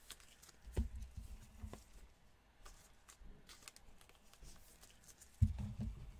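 Trading cards handled by gloved hands: faint rustling and light clicks of card edges, with soft low thumps about a second in and again near the end as cards are set down on the table.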